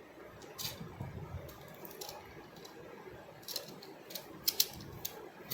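Plastic toy parts clicking and knocking against each other as pieces are handled and fitted together, with a scatter of short sharp clicks, the loudest a quick pair near the end.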